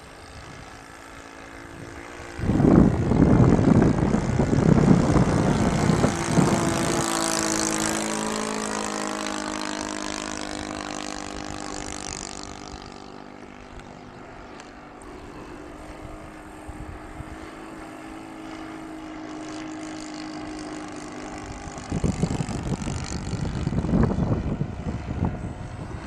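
Propeller aircraft flying overhead, its engine drone sliding down in pitch as it passes. Gusts of wind buffet the microphone, loudest a few seconds in and again near the end.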